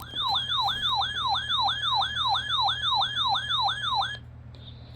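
Electronic yelp-type siren alert tone: a rapid wailing sweep that falls in pitch and repeats about three times a second, running for about four seconds and then cutting off abruptly.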